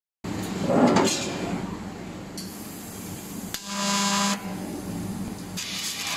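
Fiber laser tube-cutting machine working on a round metal tube: a burst of machine noise in the first second, a sharp click about halfway followed by a short steady hum as the beam pierces the tube, then a hiss as cutting begins near the end.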